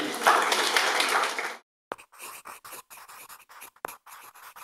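Audience applauding right after a speech ends, cut off abruptly after about a second and a half. Then faint, irregular scratching strokes with a few sharp clicks.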